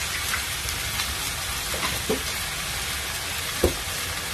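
Tomato and red onion wedges sizzling in hot oil in a nonstick pan, a steady hiss with scattered crackles and one sharper pop about three and a half seconds in.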